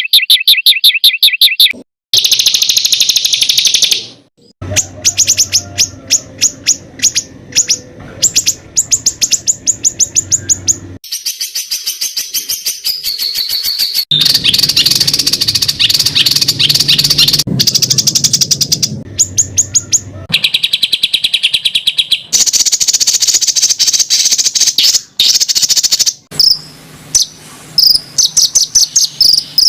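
Songbird masteran recording of harsh rapid-fire 'tembakan' song: strings of short, high, repeated notes at about ten a second, spliced from several clips with abrupt cuts between them.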